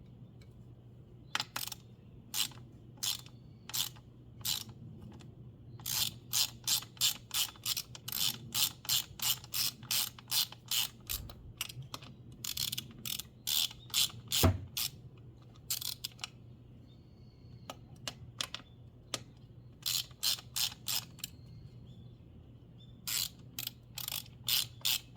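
Ratchet wrench clicking in runs of quick strokes, about three clicks a second, with short pauses between runs, over a steady low hum.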